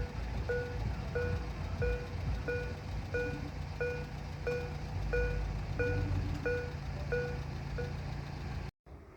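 Railway level-crossing warning signal beeping in short repeated tones, about three every two seconds, over a low engine rumble. The beeping stops near the end, and the sound then cuts off abruptly.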